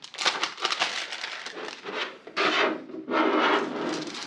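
Kit packaging and parts being handled by hand: rustling and rubbing, with two longer, louder scraping sweeps in the second half.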